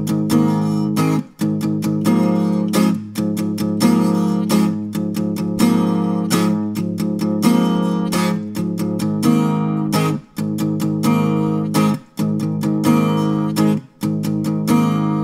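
Guitar strumming chords in a steady rhythm, with a few short breaks between chords.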